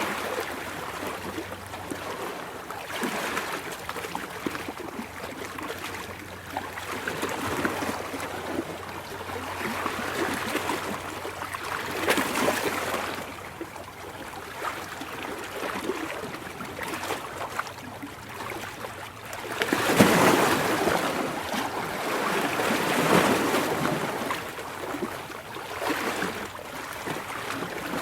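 Ocean waves washing in, the sound swelling and fading every few seconds, with the loudest wave breaking about two-thirds of the way through.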